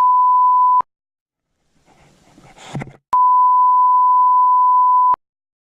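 Censor bleep: a steady, loud single-pitch beep that cuts off just under a second in, then sounds again for about two seconds, masking an angler's swearing. Between the beeps there is a brief vocal sound.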